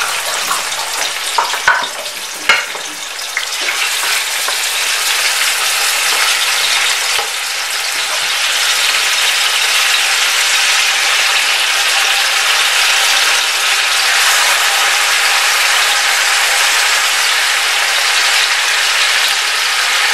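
Hot oil sizzling in a pot of fried onions, tomatoes and garlic-ginger paste as goat meat and marrow bones go in to brown. Two sharp knocks about two seconds in, then the sizzle grows louder and stays steady.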